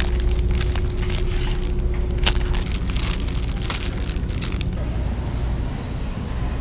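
Plastic candy bags crinkling and crackling in rapid small clicks as a hand takes them off a store rack, over a steady low rumble. The crackling dies away about five seconds in.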